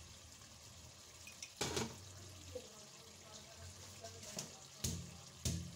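Quiet kitchen sounds: a few short knocks or clinks over a faint low hum. One comes about a second and a half in, and two come close together near the end.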